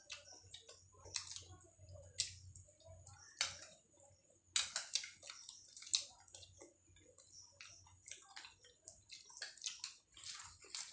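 Two people eating by hand: irregular wet chewing and mouth smacks, with fingers squishing into potato curry and breaking puffed luchi. The clicks come thickest about halfway through.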